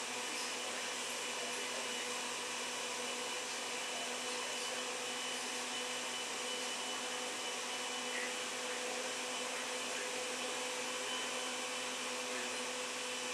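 A machine running steadily: an even whirring hiss with a constant hum and a faint high whine.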